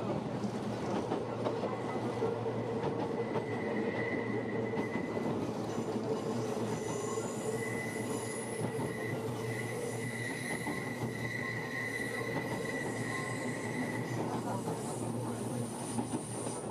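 Kintetsu Yoshino Line train heard from inside the carriage, running with a steady rumble of wheels on rail. Its wheels squeal in high steady tones from a few seconds in until near the end.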